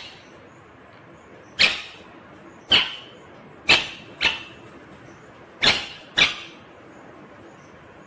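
Six short, sharp animal calls, two of them in quick pairs, over a low steady hiss.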